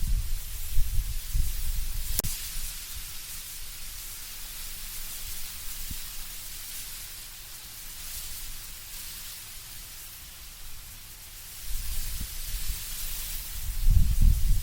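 Wind blowing through trees with dry autumn leaves rustling as a steady hiss. Low rumbling gusts swell at the start and again near the end, easing off in between, and there is one sharp tick about two seconds in.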